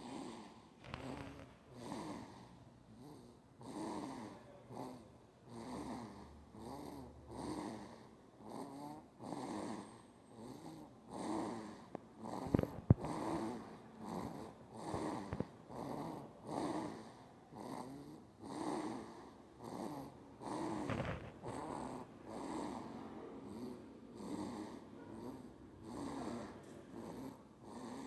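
A six-week-old baby snoring, a rattly breath about once a second, with a couple of sharp clicks about halfway through.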